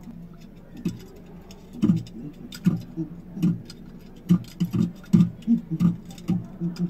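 A man imitating ape calls, a rapid irregular series of short hoots and grunts about two a second, with sharp clicks among them.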